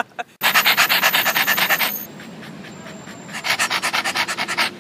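Rapid panting, about ten quick huffs a second, in two spells with a quieter pause between them.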